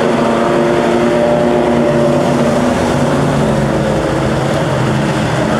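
Street stock race cars' engines running together as a pack circles a dirt oval, a steady engine note that dips slightly in pitch about halfway through.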